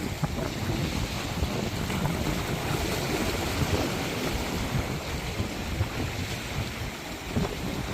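Small waves washing and lapping onto a shore: a steady wash of water with many small, irregular splashes.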